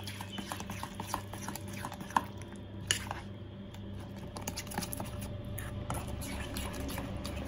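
A metal spoon stirring a wet egg and grated-potato batter in a stainless steel bowl: light scraping and frequent small clicks of spoon against steel, with two sharper clinks about two and three seconds in.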